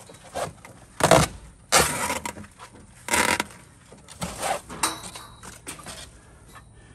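A run of short scrapes and rattles, one every second or so, as the old hardware-cloth vent screen is pulled out and the dirt dauber and wasp debris in the gable vent is scraped away.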